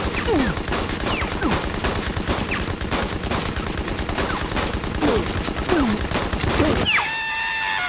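Cartoon gunfire sound effect: many handguns firing in a long, rapid, unbroken volley. A few short falling pitched sounds run through it, and a held high-pitched cry comes near the end.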